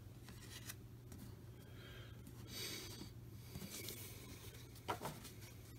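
Faint rustling and sliding of cardboard baseball cards being handled and set down on a stack, with a soft tap about five seconds in, over a low steady hum.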